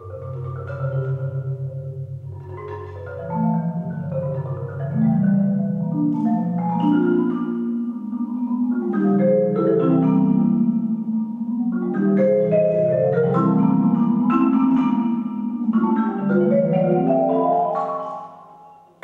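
Solo marimba played with four soft yarn mallets: quick runs and struck chords climbing out of the low register. It grows louder about three seconds in and falls away sharply just before the end.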